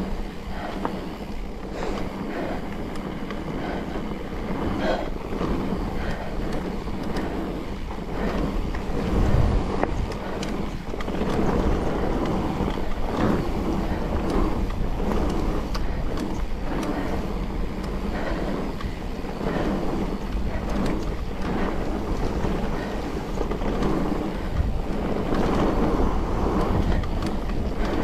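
Mountain bike riding a dirt trail: tyres rolling over the ground, with wind on the microphone and frequent knocks and rattles from the bike. A heavier thump comes about nine seconds in.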